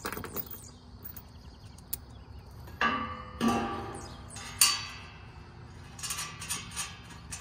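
Metal clanks and knocks as a Zurn Z165 roof drain and its flat sheet-metal plate are handled and set down on a wooden deck: two ringing clanks about three seconds in, a sharper clank a second later, then several lighter taps.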